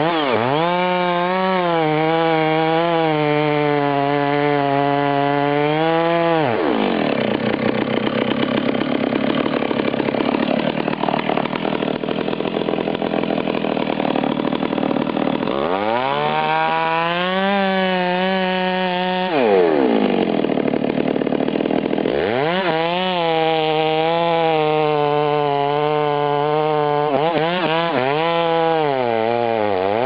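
Large two-stroke chainsaw cutting into a big tree trunk at full throttle. The engine note sags and revs back up several times as the cut is worked.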